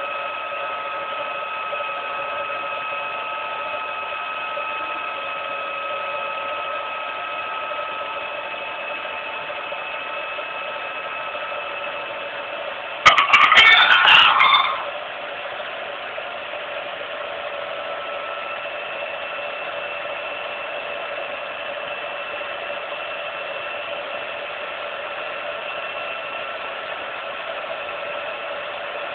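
16mm film projector running with a steady mechanical whine made of several held tones. About 13 seconds in, a loud clattering burst of under two seconds cuts in, then the steady running goes on.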